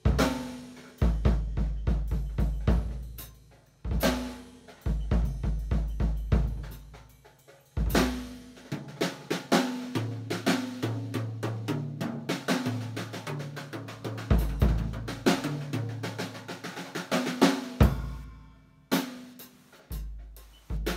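Acoustic Basix drum kit being played: kick drum, snare, hi-hat and cymbals in busy grooves and fills, broken by brief pauses about every four seconds, with deep low notes ringing under the hits.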